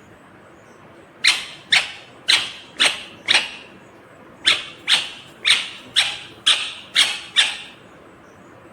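Indian ringneck parakeet screeching: a run of short, sharp calls, each falling in pitch, about two a second in two bursts of five and seven with a short break between.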